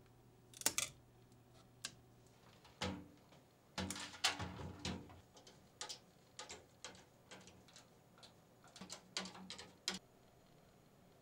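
Irregular sharp plastic and metal clicks and taps: a 3D-printed plastic frame is lifted off the printer bed, then screws are driven by hand screwdriver to fix it to a steel PC case panel. The clicks stop about a second before the end.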